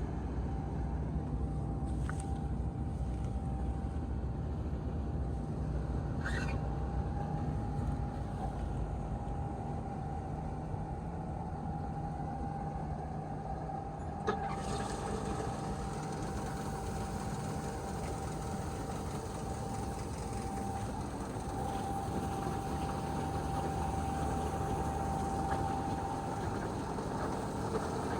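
Paddy combine harvester running steadily while its grain tank is unloaded into a tractor trolley, with a steady whine over the engine. A hiss comes in about halfway.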